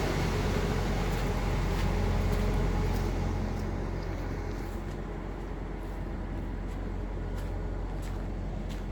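Engine idling steadily while running on its built-in idle timer with the key turned off, warming up and building brake pressure before it shuts itself down. A few light ticks sound over it in the second half.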